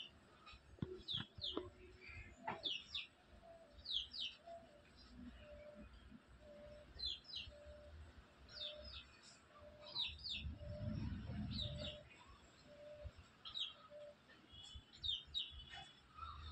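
Birds calling: short, high, falling chirps, often in quick pairs, repeated every second or so, with a low note repeated about twice a second through the middle. A brief low rumble comes about halfway through.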